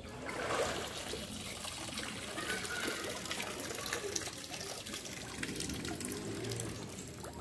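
Muddy river water splashing and trickling around bamboo poles and a fishing net as it is handled in the current, with scattered small clicks and knocks.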